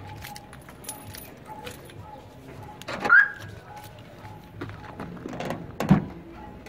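Pickup truck's driver door unlatched and pulled open, with a deep clunk just before the end, after light footsteps and a sharp sound with a short falling chirp about halfway. Birds call in the background.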